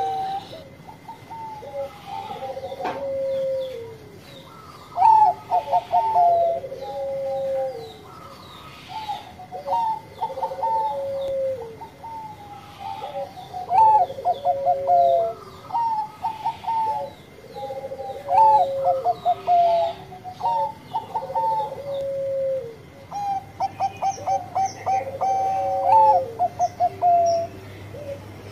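A Bangkok-strain zebra dove (perkutut) cooing its song over and over. Each phrase is a quick run of clipped notes ending in a longer, falling coo, and it comes about every two seconds. Faint high chirping from another bird joins near the end.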